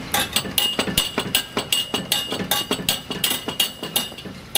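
Rapid knocking and rattling on a wooden gate with metal fittings, about four sharp knocks a second, each with a brief metallic ring; it stops near the end.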